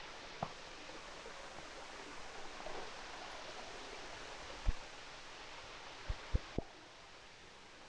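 Steady outdoor hiss with a few soft low thumps: one near the start, one stronger a little before the five-second mark, and three close together around six seconds. The hiss drops a little just after the last of them.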